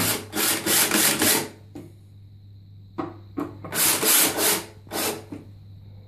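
Cordless drill-driver driving screws into a concealed toilet cistern's plastic cover. It runs in short bursts: a run of about a second and a half at the start, then several shorter runs from about three seconds in.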